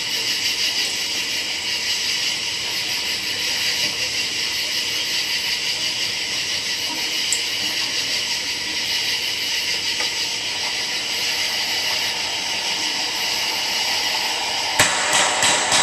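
Steady high hiss with faint steady tones, then about a second before the end a firework bursts with one sharp bang, followed by a few smaller pops.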